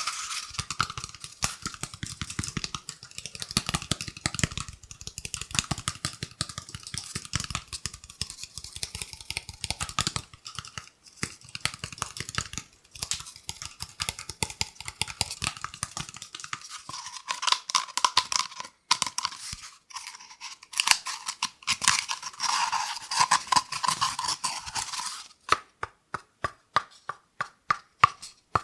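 Scratching and rubbing on a cardboard kitchen-roll tube, a dense, irregular crackle, then a quick, even run of taps near the end.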